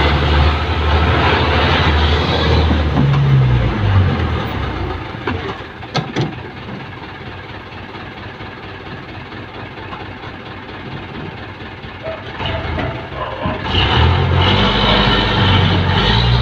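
Jeepney's diesel engine running under load and revving, then dropping to a low idle for several seconds, with a single click about six seconds in. Near the end it revs up loudly again as the jeepney pulls away up a steep hill.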